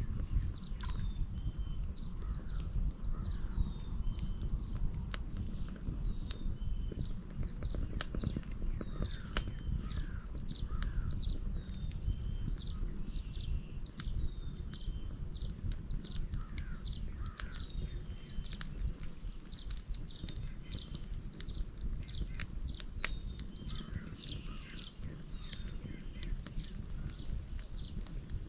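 Wood fire crackling with scattered sharp pops over a steady low rumble, while small birds chirp and sing repeatedly throughout.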